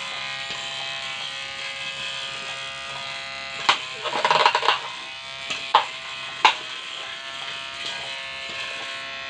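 Small electric motors of a 3D-printed antweight combat robot running with a steady buzzing whine. About four seconds in come a sharp knock and a short clattering rattle, then two more single knocks over the next two seconds.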